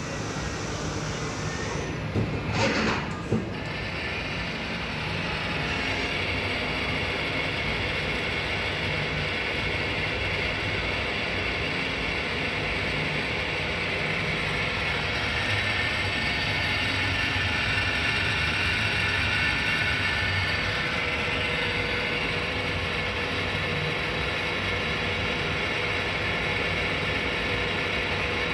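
Miyano BND-42S5 CNC lathe running through its machining cycle: a steady mechanical running noise with faint high whining tones. A short, loud burst of clattering comes about two to three seconds in.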